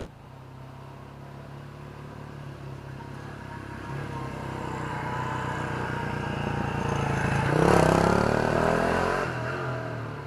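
Honda Super Cub motorcycle's single-cylinder engine running as the bike draws closer, getting louder to a peak about eight seconds in and then fading as it passes and moves away.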